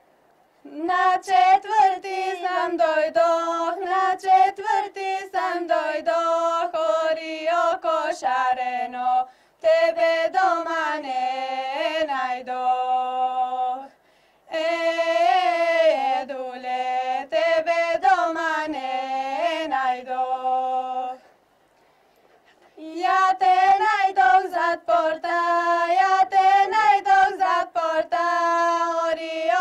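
A woman's voice singing an unaccompanied folk song in four long, ornamented phrases, with short breaks between them. Each phrase ends on a lower held note.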